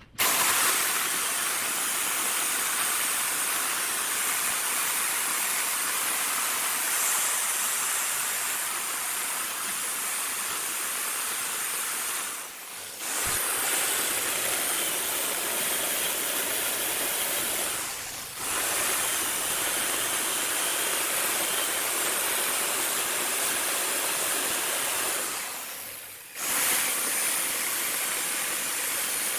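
Steady, hissing noise of a tool cutting or sanding wood as it spins on a wood lathe. It dips briefly three times and comes straight back.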